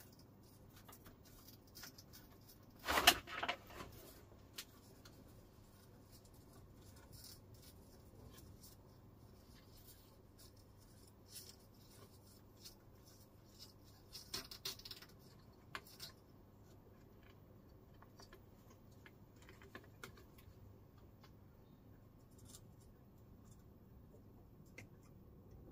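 Faint clicks and small taps of hands and a soldering iron working at a TV's mains transformer tap connection, with a brief clatter about three seconds in and a short cluster of taps about fourteen seconds in.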